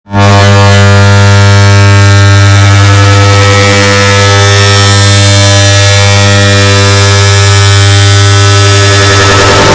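Air conditioner turn-on sound, layered and amplified into a loud, distorted electrical buzz with a deep hum. It cuts in abruptly and holds steady.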